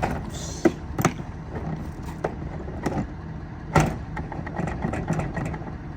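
Hard plastic clicks and knocks of a Milwaukee PACKOUT tool box being unlocked and lifted off its mounting plate: a handful of sharp clicks, the loudest knock a little under four seconds in, over a steady low hum.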